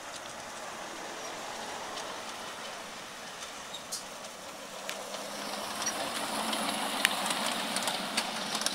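Miniature ride-on railway train, a small locomotive hauling riders on sit-astride cars, rolling along the narrow-gauge track and getting louder as it passes close by. A low steady hum and sharp clicks of the wheels come in over the second half.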